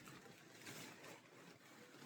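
Near silence: faint room tone with a brief soft noise about two-thirds of a second in.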